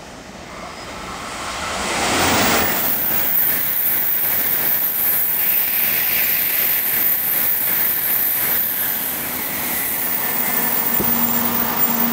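Shinkansen bullet train running through a station at speed: a loud rushing swell of air and wheel noise that builds over the first two seconds and holds, with a strong high hiss. A click and a steady low hum start near the end.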